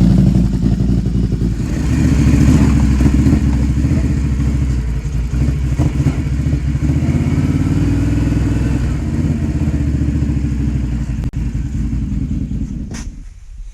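ATV engine running steadily at close range, cutting off suddenly near the end.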